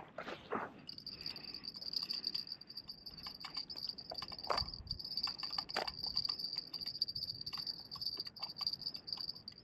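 A cricket trilling steadily, one high-pitched insect call that starts about a second in. Scattered soft footsteps and handling knocks, with two sharper clicks near the middle.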